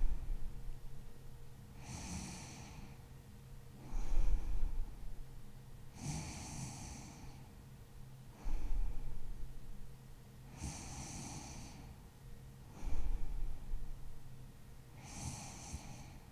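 A woman's slow sleep breathing, close to the microphone: a low snore about every four seconds, each followed a couple of seconds later by a softer, airy breath.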